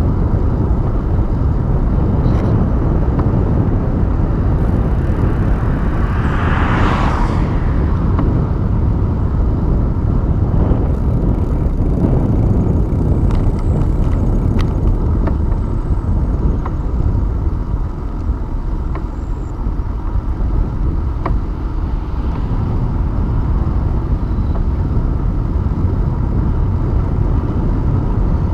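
Wind rushing over the microphone of a handlebar-mounted camera on a moving bicycle: a steady low rumble, with a brief louder hiss about seven seconds in and a few light clicks.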